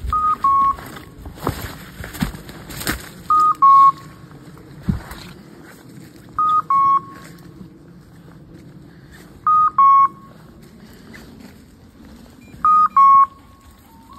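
Hunting dog's beeper collar sounding a two-note electronic beep, a higher note then a lower one, five times at about three-second intervals. Under it are rustling and snapping footsteps through dry leaf litter and twigs.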